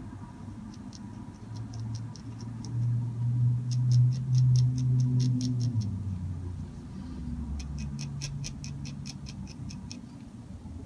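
Steel G-nib dip pen scratching across paper in quick hatching strokes, about five or six strokes a second in three short runs. Under it a low droning hum swells loudest in the middle.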